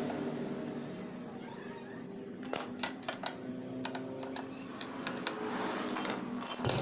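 Metal hand tools clicking and clinking against a motorcycle engine: scattered sharp clicks starting about two and a half seconds in and growing louder near the end, over a faint hum that fades out in the first two seconds.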